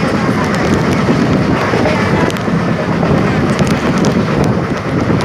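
Steady rush of wind buffeting the microphone at the open window of a fast-running Indian express train, over the continuous low rumble of the coaches on the track.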